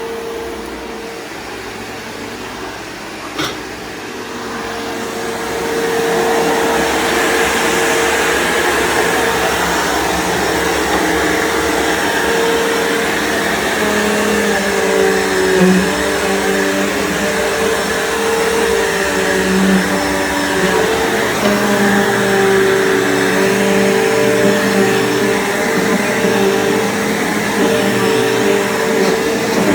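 Bissell PowerForce bagged upright vacuum cleaner running continuously with a steady motor hum. There is a sharp click about three and a half seconds in, the sound gets louder around six seconds in, and its pitch wavers through the second half.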